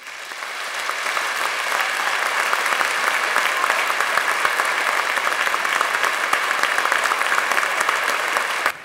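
Audience applauding: a dense, steady clatter of many hands clapping that swells over the first second, then falls away suddenly near the end.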